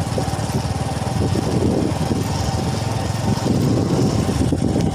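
A small engine running steadily, with rapid, even firing pulses and a steady whine above them.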